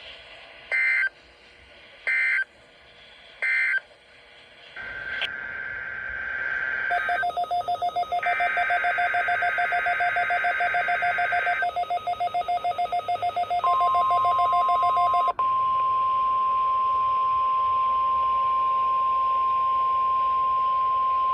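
Three short screeching bursts of EAS/SAME digital header data, then several seconds of overlapping beeping and steady alert tones, then the steady 1050 Hz NOAA Weather Radio warning alarm tone sounding without a break, heard through a radio receiver. Together they open a test of the weather radio's warning alarm.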